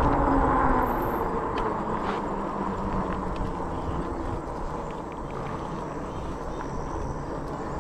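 Riding noise of an electric fat-tire bike: steady wind rush on the camera microphone and tyres rolling on pavement, easing off over the first few seconds, with a few light clicks.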